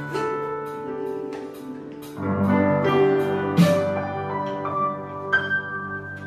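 A small band playing together: electric guitar, electronic drum kit and piano. The drums hit steadily throughout, and the playing grows fuller and louder about two seconds in.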